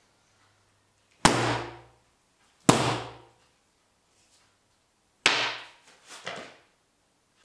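A cane hitting padded strike shields: three loud separate smacks, the second about a second and a half after the first and the third about two and a half seconds later, each ringing off in the hall. A fainter knock follows shortly after the last one.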